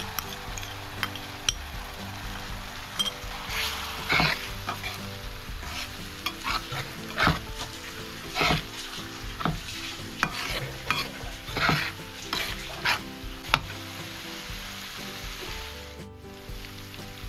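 Sliced onions and green chillies frying in an aluminium karahi sizzle as a wet spice paste is poured in and stirred with a metal spatula. The spatula scrapes the pan in strokes about once a second, which stop near the end while the sizzling goes on.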